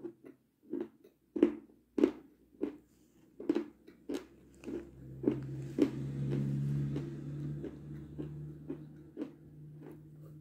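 Close-miked crunchy chewing of a crisp treat, with sharp crunches about twice a second. A low steady hum runs under the chewing from about halfway through.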